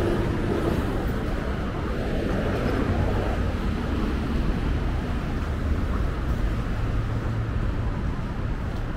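City street ambience: a steady traffic rumble with no single event standing out.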